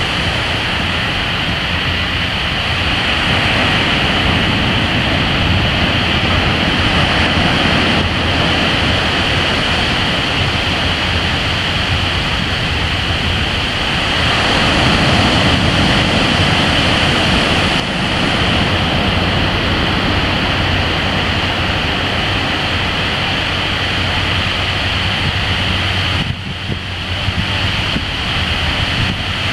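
Ocean surf breaking and washing up the beach as a steady rushing of white water. It swells louder about halfway through and dips briefly near the end.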